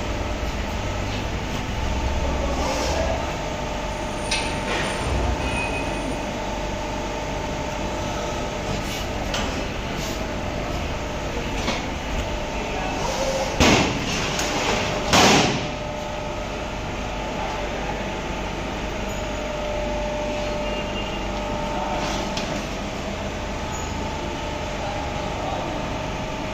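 CNC sheet-metal bending machine running with a steady hum and a couple of held tones. A little past halfway come two loud knocks about a second and a half apart, with a few fainter knocks elsewhere.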